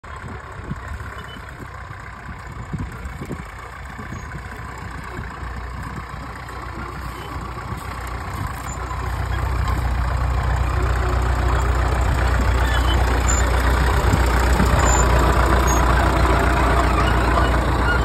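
International TD-6 crawler tractor's diesel engine running steadily as it pulls a trailing plough. It grows louder as the tractor comes closer, and is close and loud from about ten seconds in.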